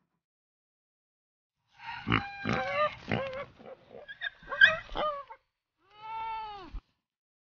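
A comic pig sound effect: a run of squeals and grunts starting about two seconds in and lasting a few seconds, then one squeal that rises and falls in pitch near the end.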